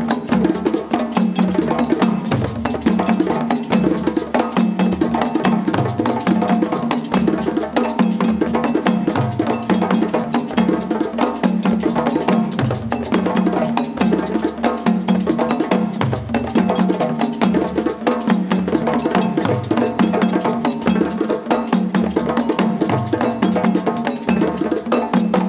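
A band on traditional West African instruments playing an instrumental passage: a fast, dense percussion rhythm over a low figure that repeats about every two seconds.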